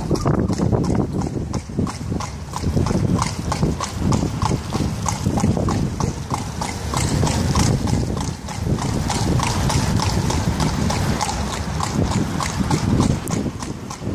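Shod hooves of a carriage horse clip-clopping at a steady walking pace on the road, over a low rumble from the moving carriage.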